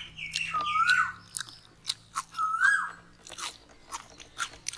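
Crisp fried fish crunching and clicking as it is pulled apart and eaten by hand. A bird calls a short rising-then-falling note twice over it.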